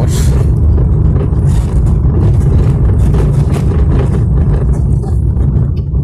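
A vehicle driving over a rough unpaved road, heard from inside: a loud, steady low rumble of engine and tyres with irregular rattling from the bumpy surface.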